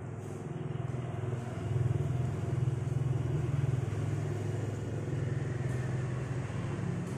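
An engine running steadily, louder from about two seconds in.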